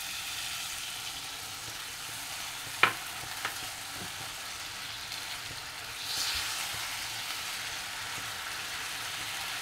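Spiced masala sizzling in a hot non-stick pan as water is poured in and a silicone spatula stirs it, with a sharp click about three seconds in and a smaller one just after. The sizzle grows brighter about six seconds in.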